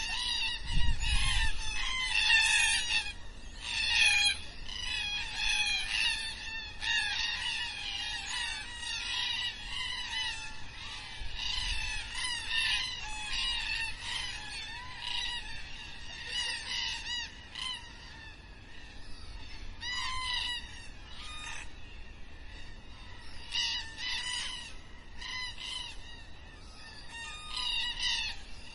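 A flock of black cockatoos calling, with many harsh, overlapping calls repeating throughout. The calling is densest in the first half, thins out for a few seconds past the middle, then picks up again.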